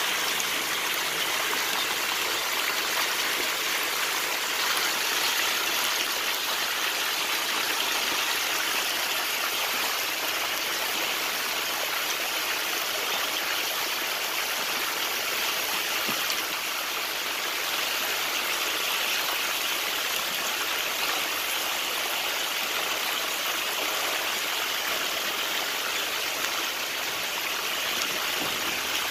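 Steady splashing and rushing of water in a shallow tank densely crowded with small desi magur (walking catfish) churning the surface.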